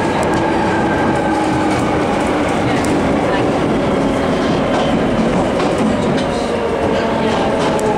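Jubilee line tube train (1996 stock) running in tunnel, heard from inside the carriage: a loud, steady rumble of wheels on rail with scattered clicks, over a traction-motor whine that slowly falls in pitch as the train slows for the station.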